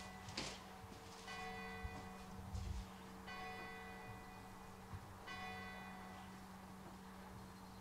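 A bell tolling slowly and faintly, struck about every two seconds, each stroke ringing on, over a steady low hum.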